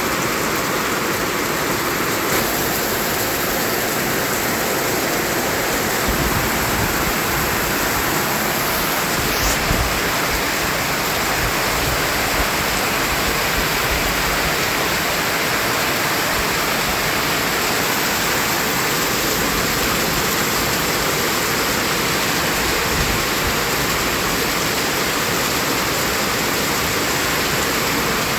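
Continuous white noise: a steady, even rushing hiss with no rhythm or breaks.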